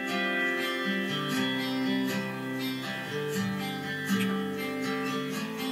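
Strummed acoustic guitar music from a TV programme, played through a Pheanoo P27 soundbar and subwoofer and picked up by a camera microphone across the room.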